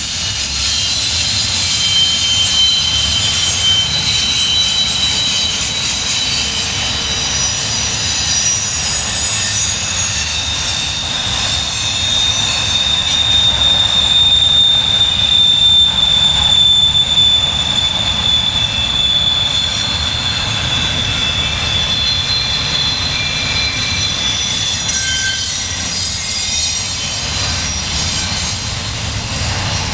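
Double-stack intermodal well cars rolling past over a steady rumble, their wheels squealing in thin, high, drawn-out tones that slide a little in pitch, the flange squeal of wheels taking a curve.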